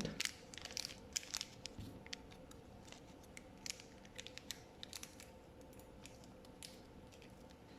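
Faint, scattered clicks and light scrapes of metal tweezers handling a small soldering iron tip, denser in the first few seconds.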